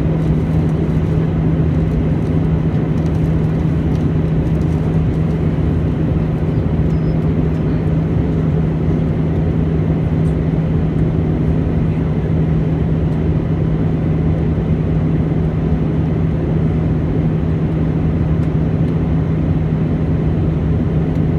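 Airbus A319 cabin noise heard from a forward seat: a steady rush of engine and airflow noise with one strong, unchanging low tone.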